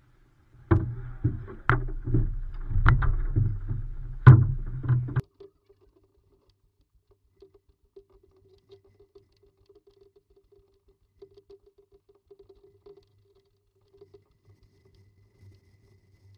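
Muffled knocks, bumps and rumbling as a Fenn Bluefin S surfski is picked up and handled, carried through the hull to the action camera mounted on its bow, lasting about five seconds with a few sharp clicks. After that only faint, occasional ticks while the ski is carried.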